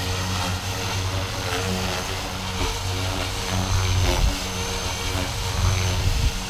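Blade 330S electric RC helicopter in flight: a steady rotor buzz with a thin high motor whine, swelling and fading in loudness as it moves about.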